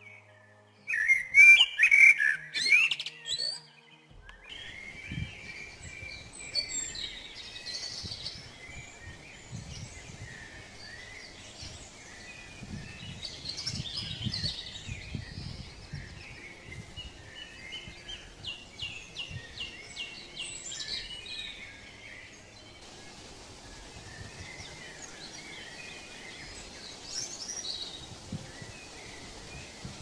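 Songbirds chirping and singing. A loud cluster of sharp, close chirps comes in the first few seconds, followed by repeated twittering phrases and trills.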